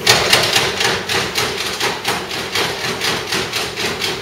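Rapid, even series of sharp knocks, about six a second, starting suddenly.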